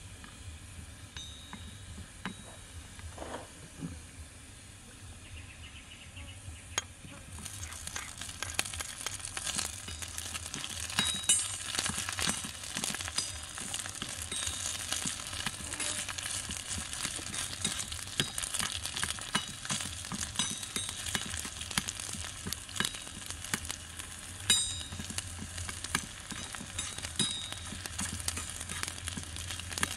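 Food frying in a miniature wok: a faint sizzle of garlic in oil that turns into a much louder, dense crackling about seven seconds in, as fresh ingredients hit the hot oil. A small metal spatula scrapes and clinks against the wok as it stirs.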